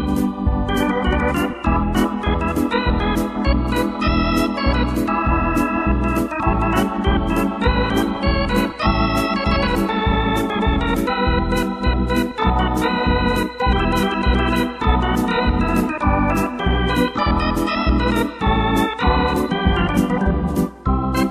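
Electronic arranger keyboard played live with an organ sound: melody and chords over a steady accompaniment beat with bass notes and high drum ticks about twice a second.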